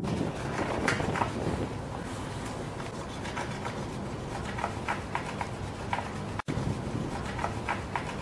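Hand-drill fire making: a wooden spindle twisted back and forth between the palms into a wooden board, dry wood rubbing and scraping in a steady rasp with many short scratchy strokes, as friction heats the wood toward an ember.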